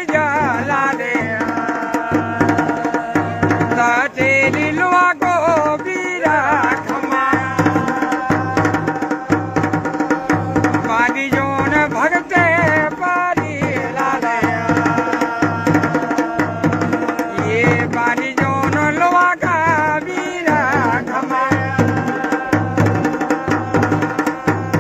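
Dhol and damau, the Pahadi folk drum pair, playing a steady driving rhythm with a wavering melody line above it.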